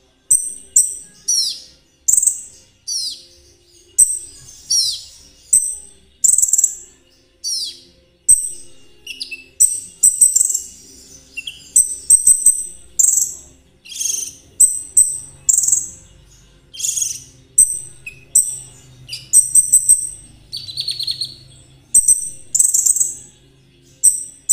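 Konin trotol songbird singing hard: a fast, unbroken string of sharp high chirps and downward-sliding whistles, mixed with buzzy trills, about one to two calls a second.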